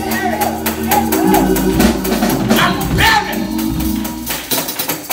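A church band playing behind the sermon: sustained keyboard chords under a drum kit's steady beat of cymbal and drum strikes.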